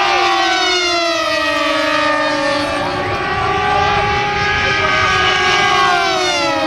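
Several Velocity 50 delta model planes with high-revving nitro engines flying past together, their overlapping engine notes slowly falling in pitch, one dropping more steeply near the end.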